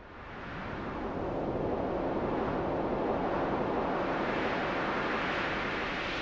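Wind-like rushing noise from an intro sound effect, swelling up over the first second, then holding steady and growing brighter toward the end.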